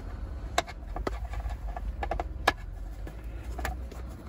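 A hand tool working a Torx screw on a car seat module's metal bracket: a few irregular sharp clicks and taps, over a low steady rumble.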